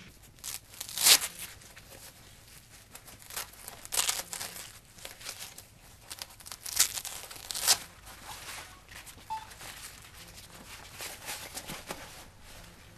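Nylon gear belt and its pouches being handled: irregular rustling and crinkling with scattered sharper scrapes, loudest about a second in and again around the middle.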